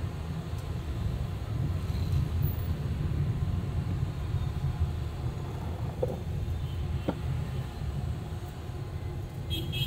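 Steady low rumble of street traffic, with a couple of faint clicks about six and seven seconds in.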